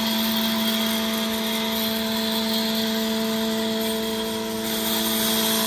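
A multipurpose woodworking machine runs with its bandsaw and grooving cutter going at once, making a steady machine hum with a constant tone, while the bandsaw cuts into a wooden block for a tenon.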